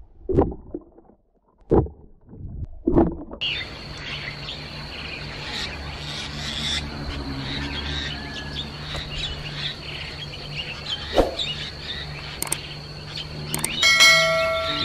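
Birds chirping over an outdoor lakeside ambience with a steady high-pitched tone and a low hum, after a few muffled underwater thumps in the first three seconds. Near the end a pitched musical note begins.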